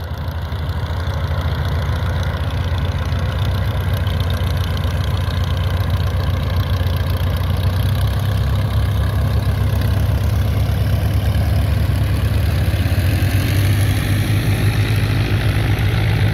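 Luscombe light aircraft's piston engine and propeller running steadily at low taxi power, close by.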